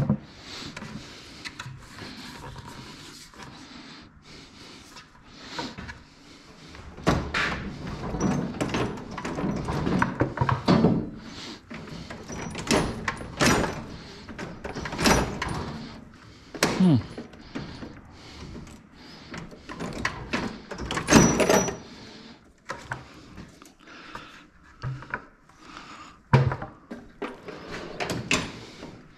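Irregular knocks, clunks and scrapes of parts being handled and fitted together, with a sharp click at the start.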